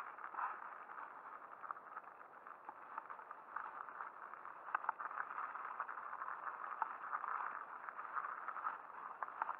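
Mountain bike riding over a rough, snowy forest trail: tyres rolling over snow and dirt with a steady rattle from the bike and frequent sharp knocks over bumps, the loudest about five seconds in.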